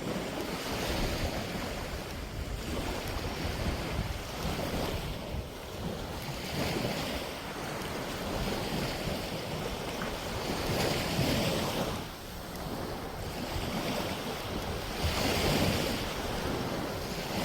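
Small sea waves washing onto a sandy beach, the hiss rising and falling every few seconds, with wind buffeting the microphone.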